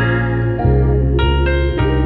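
Instrumental background music with a strong steady bass and sustained chords that change every half second or so.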